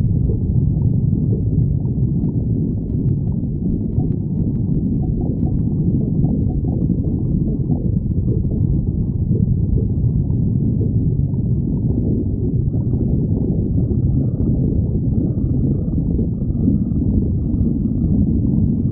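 A hungry person's stomach growling: a continuous low, rumbling sound with no break.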